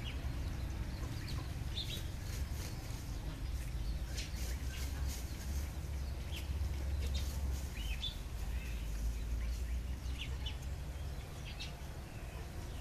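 Birds chirping briefly now and then over a steady low rumble.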